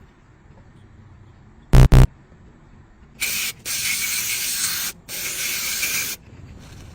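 Spray hissing in three bursts over about three seconds. The hiss comes after two short, loud beeps.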